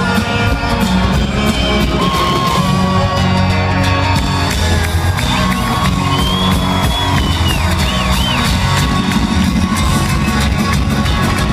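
Loud live band music with singing, heard from the audience in an arena, with the crowd shouting and whooping over it.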